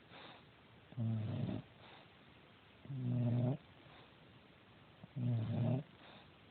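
English bulldog snoring in her sleep: three loud snores about two seconds apart, in a steady rhythm.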